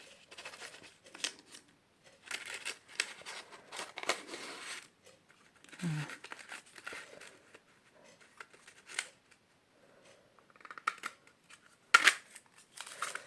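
Scissors cutting a circle out of a paper post-it note: runs of short snips in clusters separated by pauses, with a sharp click near the end.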